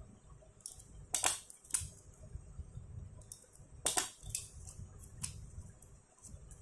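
Small hand stapler pressed through a folded stack of paper, stapling a mini notebook's spine: two sharp clicks, about a second in and near four seconds, with lighter clicks and paper handling between.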